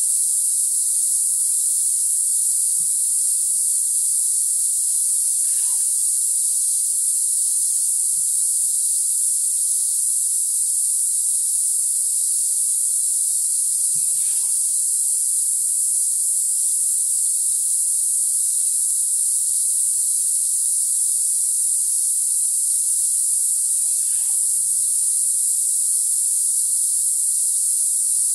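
Steady, high-pitched drone of a tropical rainforest insect chorus, unbroken throughout, with a few faint soft knocks now and then.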